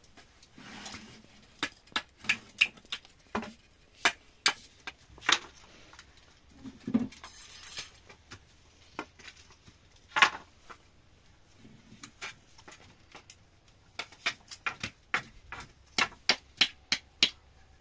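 A series of short, sharp clicks and taps at an uneven pace, one much louder about ten seconds in, coming faster, about two or three a second, in the last few seconds.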